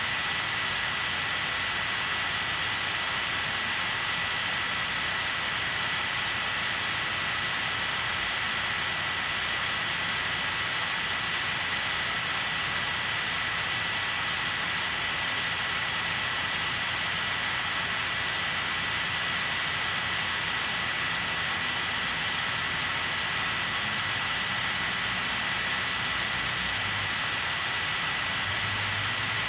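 Steady hiss with a thin, constant high-pitched whine running under it, unchanging throughout, with no distinct events.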